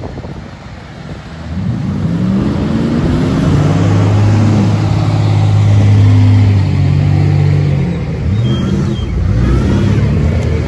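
Pickup truck engines revving under load during a tow-strap recovery, one truck pulling another on a muddy trail. The engine note builds about a second and a half in, holds steady and loud through the middle, then rises and falls in several revs near the end.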